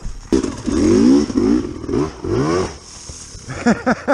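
Dirt bike engine revving up and down in short bursts as the throttle is worked over rocky ground. From about three and a half seconds in, the revs come in quick repeated blips, about three a second.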